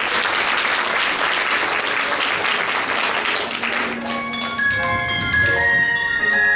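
Audience applauding; about four seconds in the clapping gives way to music starting, with bright, clear repeated notes.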